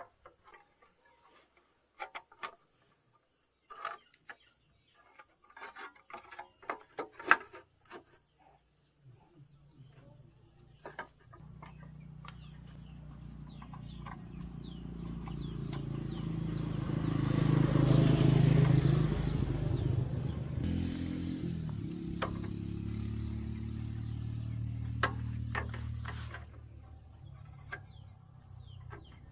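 Scattered clicks and knocks of metal parts being handled, then an engine comes in about ten seconds in. It grows louder to a peak near the middle, runs fairly steadily, and drops back a few seconds before the end.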